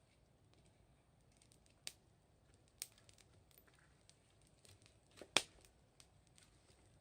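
Wood fire crackling quietly: scattered sharp pops and ticks from burning firewood, with the loudest pop about five seconds in.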